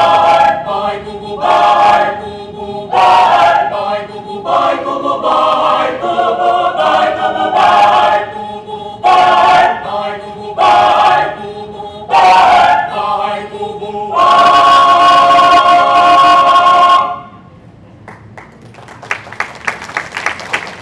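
Mixed-voice choir singing a cappella in short, clipped phrases, ending on a long loud held chord that cuts off together about three seconds before the end. Applause starts up near the end.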